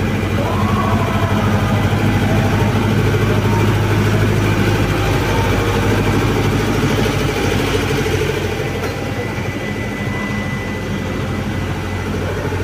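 A large engine idling steadily, a low continuous hum, with voices in the background.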